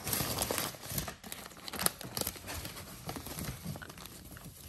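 Paper burger wrapper being unwrapped and crinkled by hand: a dense run of crackles and rustles, busiest in the first couple of seconds, then thinning out.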